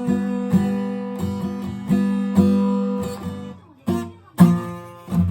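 Acoustic guitar strummed in sustained chords, a strum about every half second, then a brief break and a few sparser strokes near the end.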